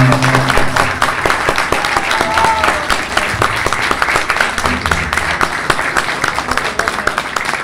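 A band's last held note dies away in the first second, then an audience applauds steadily.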